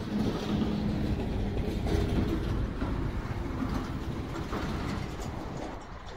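A low engine rumble with a faint steady hum, loudest about two seconds in and easing off toward the end.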